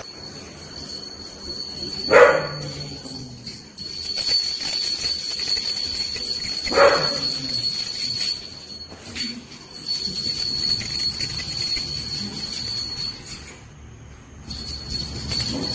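A brass puja hand bell rung continuously during aarti, a high bright ringing that stops for a moment near the end and starts again. Two short cries come a few seconds in.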